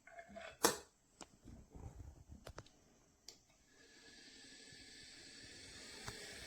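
A few clicks and knocks, the loudest just under a second in, then from about four seconds in an espresso machine starting to run: a steady hiss and whine that grows gradually louder.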